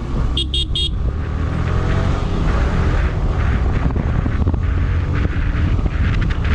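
Motorcycle on the move with a steady low rumble of engine and wind on the microphone. A horn beeps twice in quick succession about half a second in.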